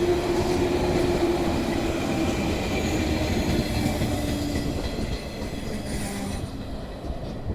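JR West 115-series electric train (set D-26, Shonan orange-and-green livery) running past close by. Its wheels rumble along the rails under a steady hum that sinks slightly in pitch. The sound fades over the last two seconds.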